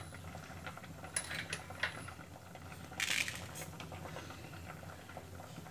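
Steel pot of bottle gourd, apple and pear pieces simmering on a gas burner: faint scattered ticks and pops over a low steady hum, with a short hiss about three seconds in.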